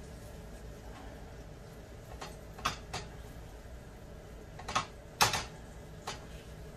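Scattered light clicks and taps, eight or so at uneven intervals, over a low steady hum.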